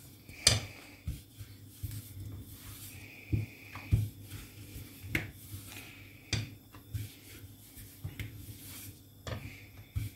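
Thin wooden rolling pin working lavash dough on a floured board: a soft rubbing with light knocks of the pin about once a second, over a low steady hum.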